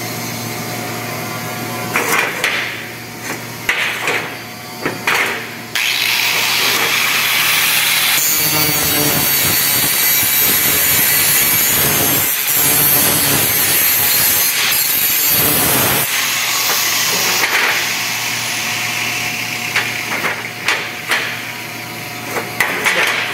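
A few sharp knocks, then a handheld angle grinder grinding the edge of a thin rolled carbon-steel duct segment, a loud steady grind for about ten seconds starting about a quarter of the way in, easing off after that.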